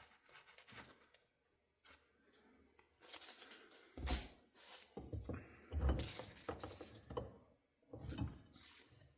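Handling noises at a workbench: scraping and rubbing with a few dull knocks, about four seconds in, around six seconds and again near the end.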